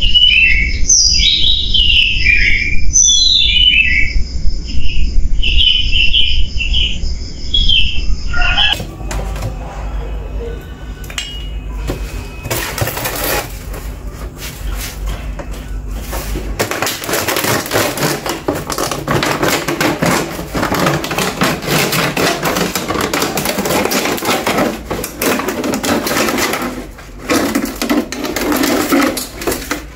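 A bird chirping in a quick run of short whistled notes for about the first nine seconds. From about halfway on there is a long stretch of rustling, scraping noise.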